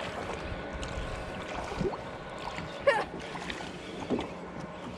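Steady drone of a distant motorboat engine, with a few brief pitched calls standing out, the loudest about three seconds in.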